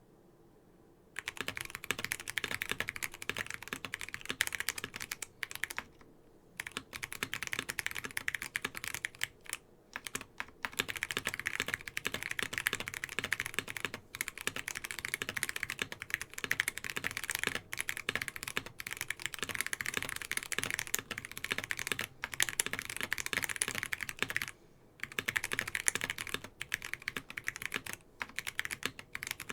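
Continuous typing on an NK87 mechanical keyboard with lubed KTT Onyx switches, PBT keycaps and a foam-dampened polycarbonate plate: a dense, fast run of keystrokes starting about a second in, broken by a few short pauses.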